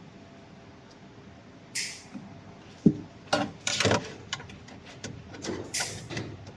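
A quiet hum, then a series of knocks, clicks and short scrapes from handling parts of a diode laser machine during a repair, the sharpest knock about three seconds in.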